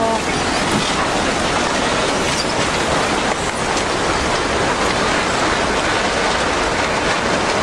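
Tsunami floodwater surging through a town, a loud steady rushing noise with the grinding of the wrecked houses and debris carried along in it.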